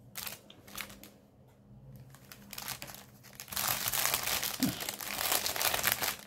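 Packaging crinkling as it is handled while thread skeins are sorted: sparse crackles at first, then denser and louder crinkling from about halfway through.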